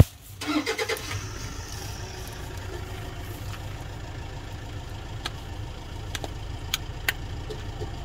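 A motor running steadily with a low hum. A sharp click comes at the very start, and a few light clicks follow later.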